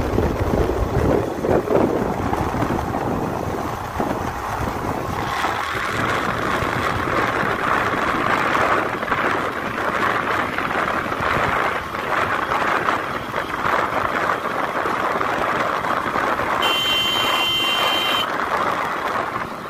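Steady wind rush and road noise from riding a motorbike along a wet highway, with the engine rumbling underneath. Near the end a vehicle horn sounds once, held for about a second and a half.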